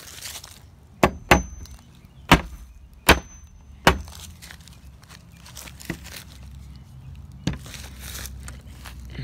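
Claw hammer striking nails into wooden fence boards: five sharp blows in quick succession over the first four seconds, two of them leaving a short high metallic ring, then two lighter knocks later.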